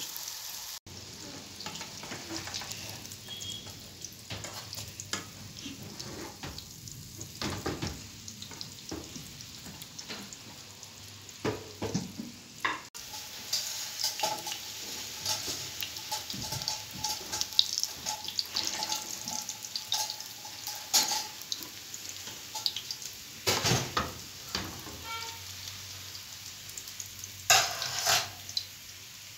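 Potato patties frying in oil in a pan: a steady sizzle with crackles, and a slotted spatula scraping and knocking against the pan as the patties are turned.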